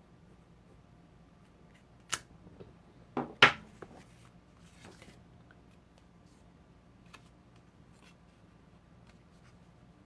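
A few sharp clicks and taps of paper and craft tools being handled on a table, the loudest about three and a half seconds in, followed by a brief rustle around five seconds.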